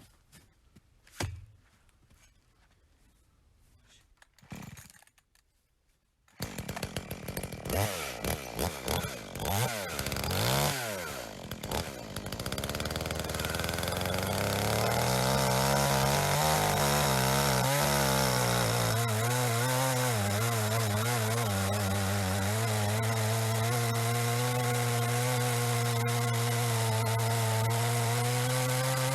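Two light knocks, then a small petrol engine starts about six seconds in. It revs unevenly at first, then settles into a steady, even run at a constant pitch for the rest of the time.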